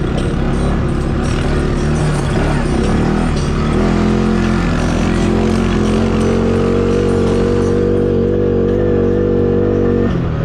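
CFMoto 500 off-road vehicle engine running under throttle. The pitch climbs about four seconds in, holds steady, then drops off sharply just before the end.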